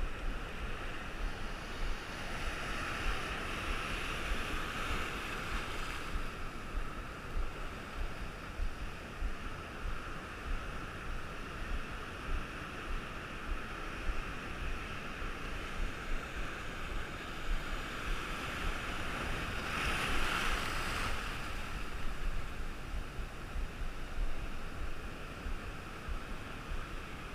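Rough sea surf washing and breaking against the shore, with two louder surges, a few seconds in and around twenty seconds in. Wind buffets the microphone underneath.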